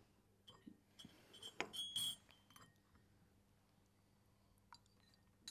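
Soft clinks and knocks of china coffee cups being handled and lifted to drink, a few sharp taps with brief ringing, the loudest about two seconds in.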